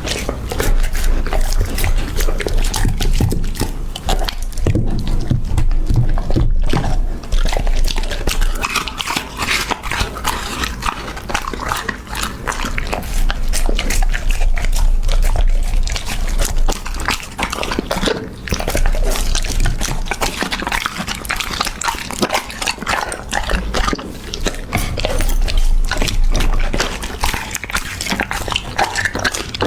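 A puppy eating raw meat close to the microphone: wet, smacking chewing made of dense, irregular clicks and squelches.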